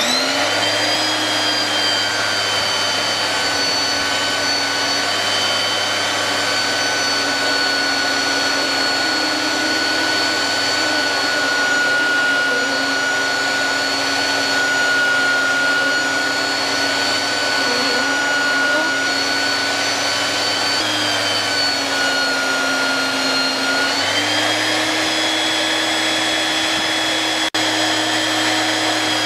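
Electric belt sander running steadily with a motor whine, while an abrasive belt cleaning stick is held against the moving belt to clear the gummed-up grit. The whine sags a little in pitch for a few seconds about two thirds of the way through, then picks back up.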